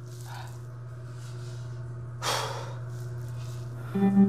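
A short, loud breath out, a little over two seconds in, over a steady low hum. Guitar music starts near the end.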